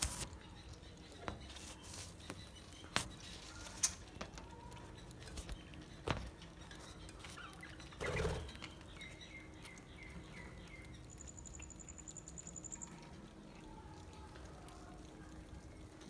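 Budgerigars in an aviary giving scattered short chirps and clicks, with a brief louder flurry about halfway, then a quick run of about six short repeated notes and a thin high trill.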